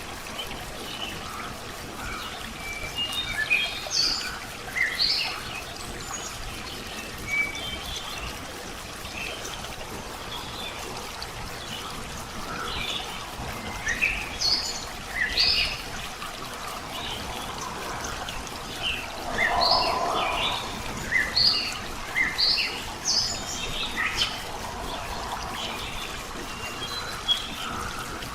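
Wild birds chirping in many short, scattered calls over a steady background hiss, with a louder, lower-pitched call about twenty seconds in.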